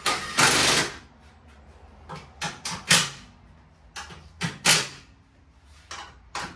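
Cordless drill driving screws into a truck grille: about a second of running at the start, then a string of quick trigger bursts.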